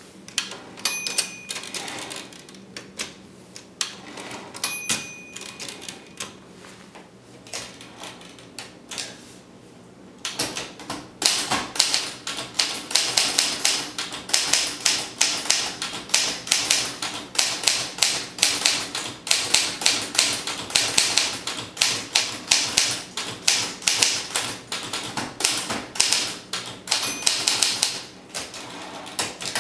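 Olivetti Studio 44 manual typewriter being typed on. For the first ten seconds the key strikes are sparse and softer, with two short ringing tones; then about ten seconds in the typing turns fast and steady, sharp type-bar clacks several a second.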